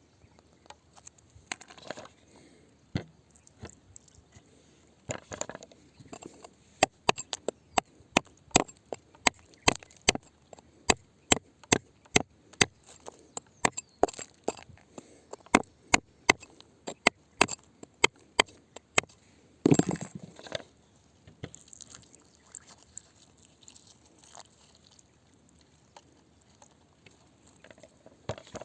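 A hand tool strikes rock over and over with sharp clinks, about two a second, starting about seven seconds in and stopping around nineteen seconds. One heavier knock comes about twenty seconds in.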